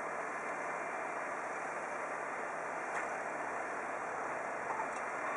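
Steady, even hum of distant vehicle engines and traffic, with a faint tick about three seconds in.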